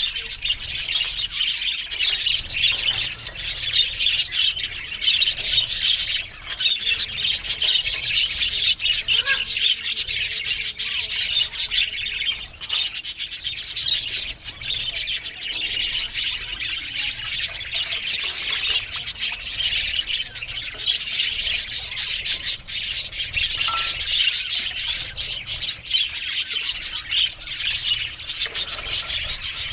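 A flock of budgerigars chattering and warbling together, a dense, continuous chorus of high chirps.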